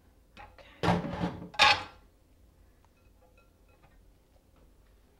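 A colander and bowl clattering as they are handled, two loud knocks about a second in.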